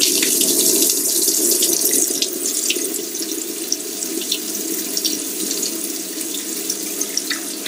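Top-loading washing machine filling its drum with water for a cold wash; the water starts suddenly and runs as a steady rush.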